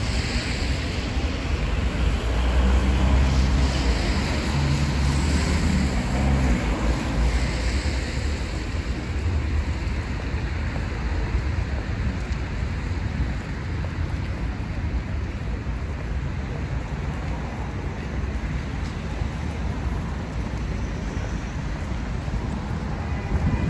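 Outdoor city street ambience: a steady low rumble, heavier for the first several seconds and then easing, with no distinct events.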